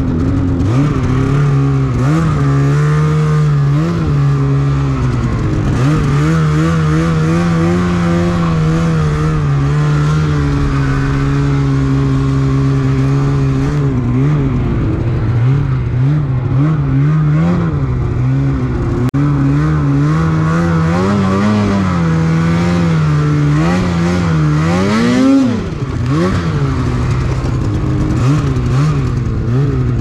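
Snowmobile engine running at low to middle revs, its pitch rising and falling with the throttle. About 25 seconds in it revs sharply upward and then drops off suddenly.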